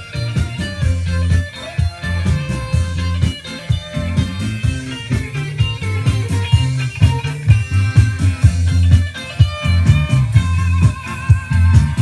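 Rock music with electric guitar over a steady drum beat and bass line.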